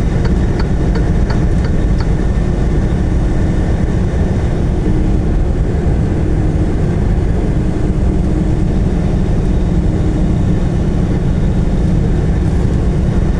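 Steady low rumble of a car driving at highway speed: engine and tyre road noise, with a few faint ticks in the first two seconds.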